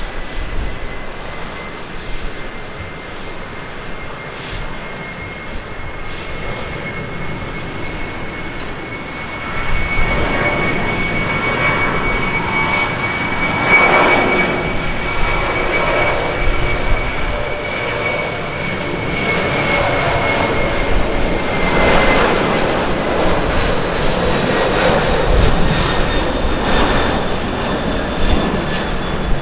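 Japan Airlines Boeing 767-300ER's twin General Electric CF6-80C2 turbofans on takeoff: a steady high whine, then about ten seconds in the sound grows sharply louder into a roar as the jet accelerates down the runway and lifts off near the end.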